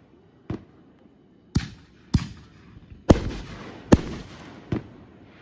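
Fireworks going off: six sharp bangs at uneven intervals, each with a short echoing tail.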